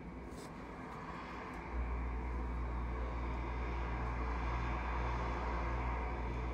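Boeing 787 jet airliner taxiing, its engines running at low power with a steady whooshing hum. A heavier low rumble comes in about two seconds in and holds.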